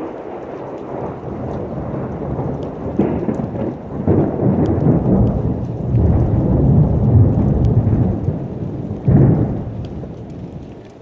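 Heavy rain with a long rolling peal of thunder. The rumble builds over several seconds, breaks into a sharp, loud clap about nine seconds in, then rolls away and fades.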